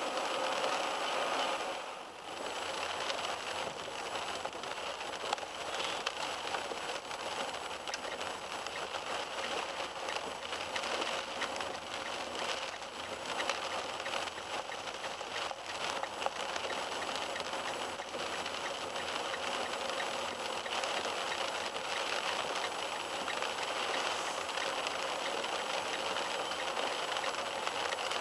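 Steady rain falling on a car, with tyre noise from the wet road, heard from inside the moving car; the sound dips briefly about two seconds in.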